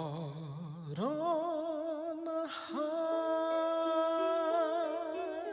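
Slow, tender music: a sustained melody line with wide vibrato, rising to a higher held note about a second in, over soft held accompanying chords.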